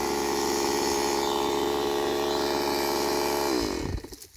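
Stihl chainsaw engine running steadily, then winding down with a falling pitch and stopping near the end.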